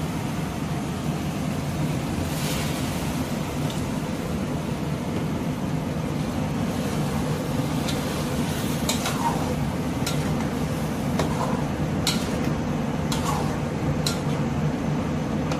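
Chicken masala cooking in an aluminium pot on a gas stove after water has been added: a steady hiss, with several sharp clicks of a metal spatula against the pot in the second half.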